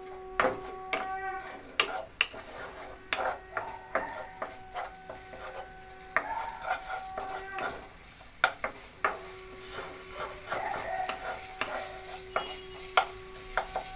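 Wooden spatula stirring and scraping a thick onion-tomato masala paste in a nonstick kadai, with irregular knocks against the pan and a light sizzle as the paste fries down in oil.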